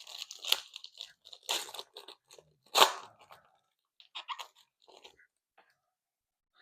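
Foil trading card pack wrapper crinkling and tearing, with cards handled: irregular crackles and sharp clicks, loudest three times in the first three seconds, then a few scattered ticks.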